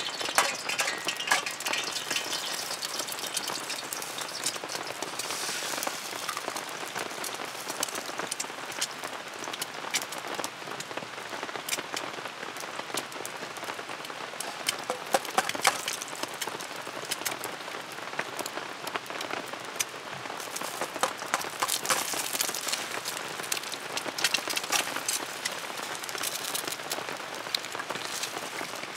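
Steady rain falling on a camp tarp, with many separate sharp drop hits scattered through it.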